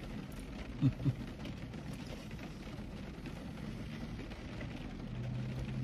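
Steady low background noise inside a car cabin, with two short murmured vocal sounds about a second in and a low steady hum coming in near the end.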